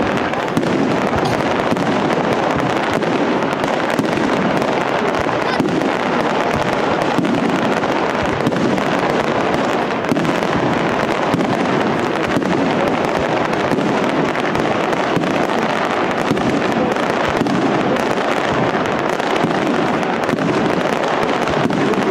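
Aerial firework shells bursting in a dense, unbroken barrage, with countless sharp bangs and cracks running together into a steady loud din.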